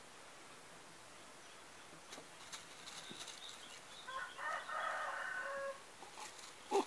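A rooster crows once, a drawn-out call of nearly two seconds starting about four seconds in. Before it come soft rustles and scratches of kittens tussling on a plastic sheet, and near the end a short sharp cry.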